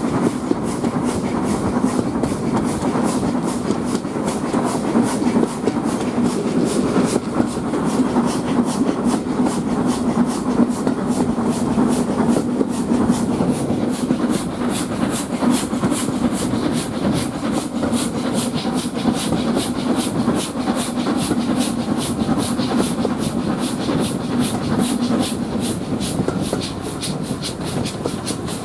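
A steam-hauled train on the move, heard from an open carriage window: the S&DJR 7F 2-8-0 locomotive working with a quick, regular beat over the steady running noise of the coaches on the rails.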